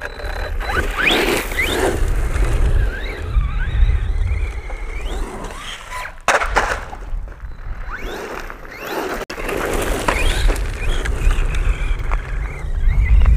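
HNR H9801 Mars 1/10-scale 4WD RC monster truck driving on gravel: its electric motor whines up and down in pitch with the throttle over a rough rolling noise from the tyres and a strong low rumble.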